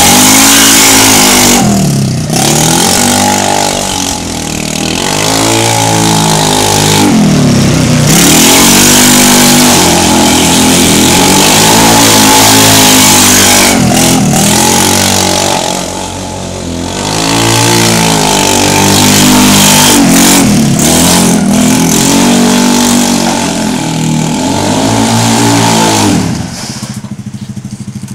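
The single-cylinder GY6 150cc four-stroke engine of a Hammerhead GTS150 buggy, running through an aftermarket Rattler exhaust. It revs up and falls back again and again while being driven, rising and dropping in pitch every couple of seconds. Near the end it quiets down sharply.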